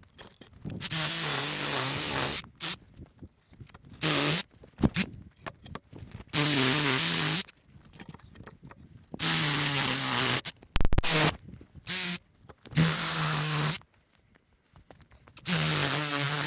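Sawzall reciprocating saw cutting the nubs and branch stubs off a log, running in repeated bursts of one to two seconds with short pauses between cuts.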